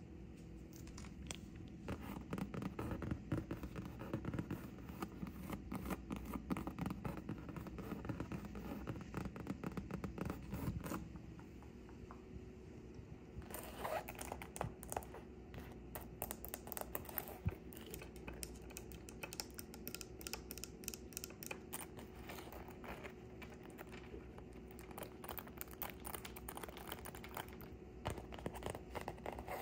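Close-up scratching on a wood-look plank floor, a fast dense rasp for about nine seconds. After a pause, long fingernails scratch and tap over the nylon fabric of a belt bag, a brighter, crisper scratching.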